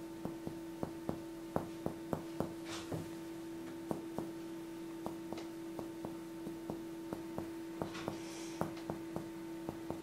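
Finger-on-finger percussion over the upper chest and breastbone: a run of short dull taps, about three a second with irregular gaps, checking for dullness from a goitre extending behind the sternum. A steady hum runs underneath and cuts off at the end.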